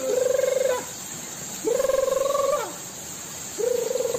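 A man's voice letting out three long, rough groans about two seconds apart. Each is held on one pitch and drops off at the end.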